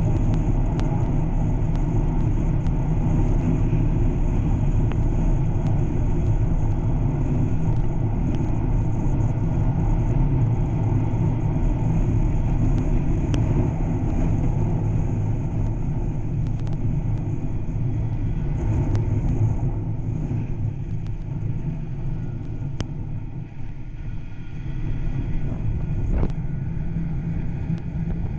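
Snowmobile running at steady trail speed, heard from the rider's seat: a dense, steady rumble of engine and track, easing off a little near the end before picking up again.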